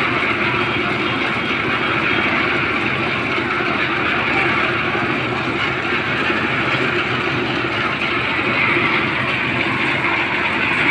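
Concrete mixer running steadily, its engine and turning drum making a continuous mechanical noise.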